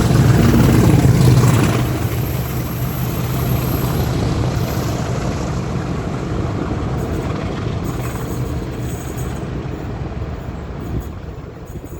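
English Electric Class 50 diesel locomotive working hard under power, its 16-cylinder engine loudest in the first couple of seconds, then fading as the train moves away.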